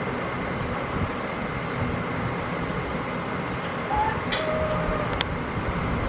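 Steady low rumbling background noise with a faint constant high whine. About four seconds in come two brief faint chirps, and a sharp click follows a little after five seconds.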